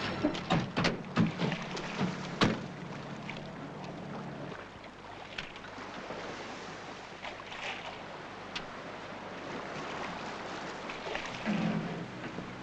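A few sharp knocks, like car doors shutting, in the first seconds, then a steady rush of wind and water from a boat out on the water.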